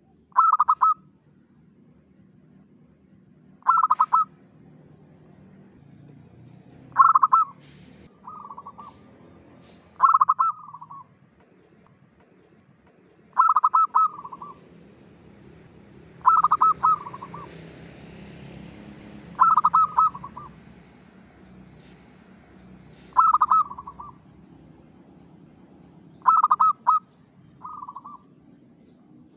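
Zebra dove singing its rhythmic cooing song: a loud, pitched phrase of about a second, repeated roughly every three seconds, nine times, some phrases followed by a shorter, quieter note.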